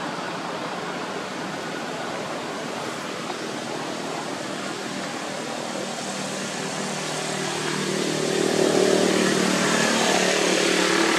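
Steady outdoor background noise, with a low steady hum that comes in partway through and grows louder about eight seconds in.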